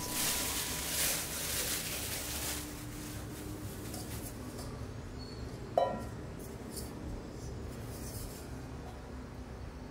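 Thin plastic bag rustling and crinkling as it is pulled off a rice cooker's metal inner pot, for the first couple of seconds. Then quieter handling of the pot, with one short ringing metal clink about six seconds in.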